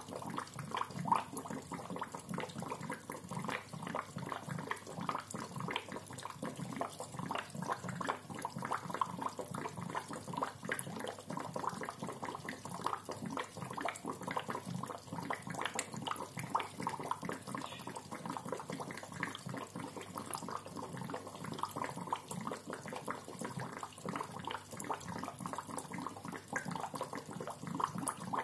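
Aquarium bubbler: air bubbling up through the tank water with a steady, continuous gurgle of many small pops.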